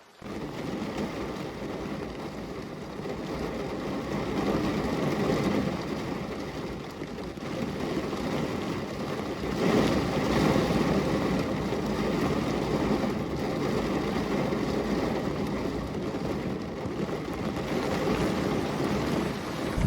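Steady heavy rain as a dense, even hiss with a low rumble under it, cutting in suddenly at the start and growing a little louder.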